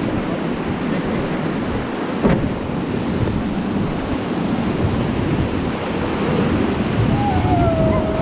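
Rushing river whitewater heard from a raft, with wind buffeting the microphone. A single sharp splash or knock about two seconds in, and a voice calling out with a gliding pitch near the end.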